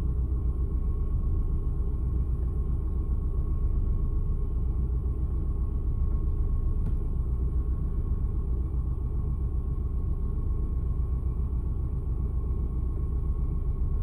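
Car engine idling, heard from inside the cabin as a steady low rumble, with a thin steady high whine over it.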